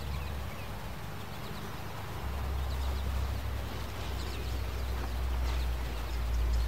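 Footsteps on a grass lawn, with a low rumble that grows louder about two seconds in, and a few faint high chirps.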